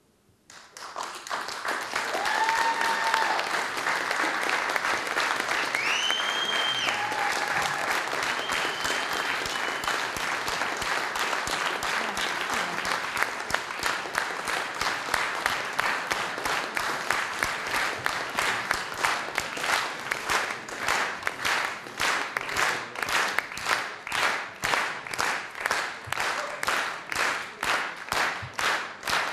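Audience applause breaking out about half a second in after silence, with a few high-pitched cheers over it early on. From about twenty seconds the clapping falls into a steady unison rhythm, a little over two claps a second.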